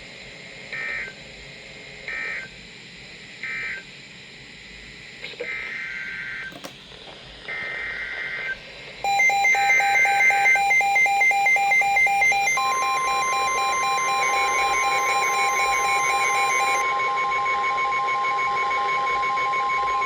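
Emergency alert signalling from a NOAA Weather Radio / EAS broadcast. First come the SAME digital header bursts: three short screeches about a second and a half apart, then three more. About nine seconds in, a fast-pulsing electronic alarm beep starts, and a few seconds later the long, steady single-pitch warning alert tone joins it and holds to the end.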